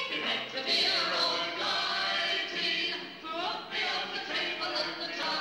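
A choir singing, several voices holding sustained notes together, with a short break between phrases about three seconds in.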